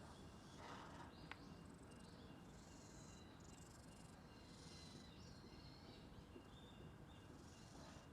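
Faint low purring of a brown tabby cat being stroked, with two soft rustles, one about a second in and one near the end.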